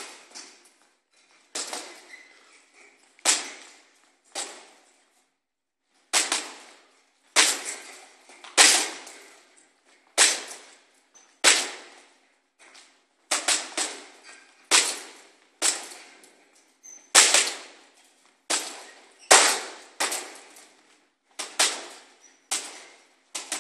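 Everlast 12 oz boxing gloves hitting a hanging heavy bag: a series of sharp punches, some single and some in quick combinations of two or three, with a short break about five seconds in.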